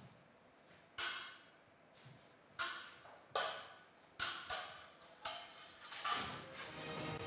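Steel training swords and bucklers clashing in a sword-and-buckler bout: about seven sharp, ringing metal strikes at irregular intervals, some in quick pairs. Music fades in near the end.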